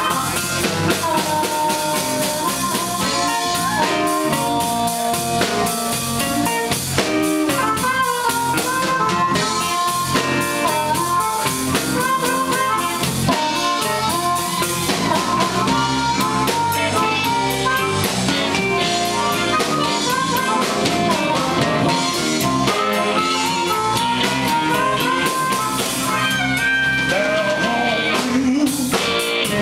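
Live blues band with amplified harmonica: a harmonica cupped against a microphone plays held and bending notes over drum kit, electric bass and electric guitars.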